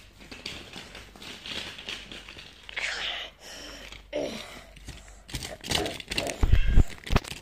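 Rustling and handling noise of a hand-held phone moving over cloth and plastic toy blocks, followed in the last two seconds by a series of knocks and heavy bumps on the microphone.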